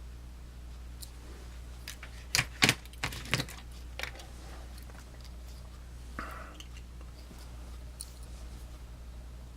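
A handful of sharp clicks and taps from small aluminium-scaled Swiss Army knives being handled and set down, the loudest two about two and a half seconds in, then a brief rustle about six seconds in, over a low steady hum.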